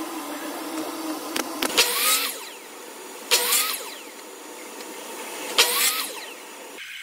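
Miter saw making three short cuts through small pieces of pine, each a loud burst as the blade spins up and bites, then the motor winding down. A low steady hum runs under the first two seconds.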